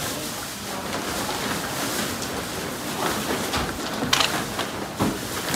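Paper grocery bags and plastic shopping bags rustling and crinkling as several people pack school supplies into them, with a few sharper crackles near the end.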